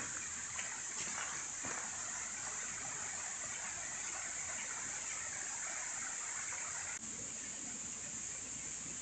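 Steady, high-pitched chorus of crickets and other insects, with an even hiss beneath it. Near the end the sound drops out for an instant and then carries on.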